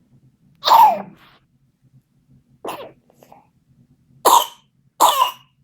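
A seven-week-old baby with whooping cough (pertussis) coughing in four short, harsh bursts, the last two close together.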